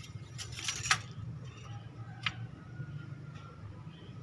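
A few light clicks and taps from handling the oil funnel and dipstick at an engine's oil filler, with one sharper click a little over two seconds in.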